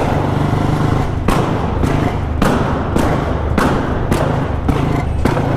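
Royal Enfield Bullet single-cylinder engine running with a steady rumble while its exhaust fires a string of loud backfire pops, about eight bangs at roughly two a second. The pops come from switching the ignition key off and on with the engine held at half throttle in third gear, so unburnt fuel ignites in the exhaust.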